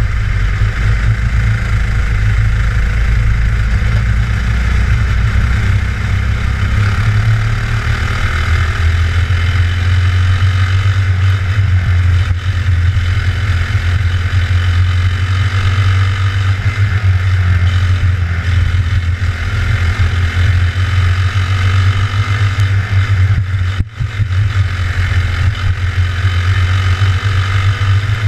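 Racing kart's engine running hard, heard close from onboard the kart as it laps, steady throughout with one brief drop in loudness near the end.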